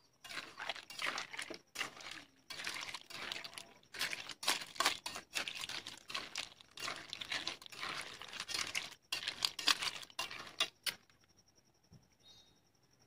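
Snails in their shells being stirred in a metal wok, the shells scraping and clattering against the pan in irregular bursts that stop about eleven seconds in.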